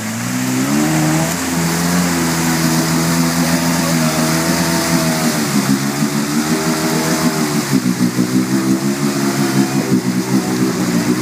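Polaris quad's engine revving hard under load as it ploughs through deep mud and water, with mud splashing. The engine note rises about a second in, holds, then wavers and pulses in the last few seconds as the quad labours.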